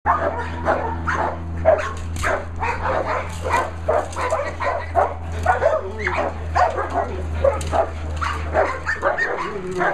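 Doberman barking rapidly and repeatedly, about three barks a second, in agitation at a helper holding a bite sleeve during protection training.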